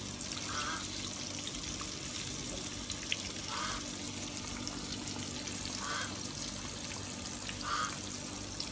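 Fish and malunggay soup simmering in an electric skillet: a steady bubbling hiss, with a few short, louder blubs every two to three seconds.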